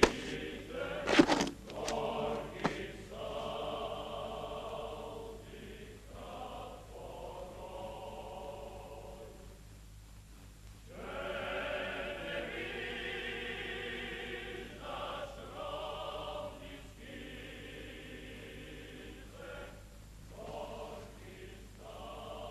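A choir singing slow, held notes in phrases of a few seconds, a film score. A few sharp knocks sound in the first three seconds.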